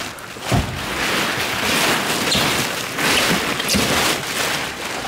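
Large plastic tarp crinkling and rustling as it is spread out and pulled over the sides of a pickup truck bed, with uneven crackles throughout.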